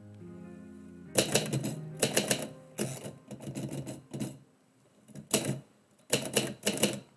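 Typewriter keys striking in quick runs of typing, five bursts separated by short pauses. Soft background music with held notes is heard in the first second, before the typing starts.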